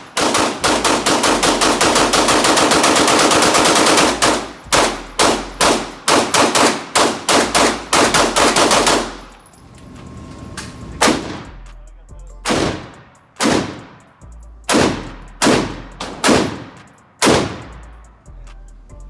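Gunfire: a fast string of shots for about four seconds, then shots about twice a second until about nine seconds in, then single shots roughly a second apart.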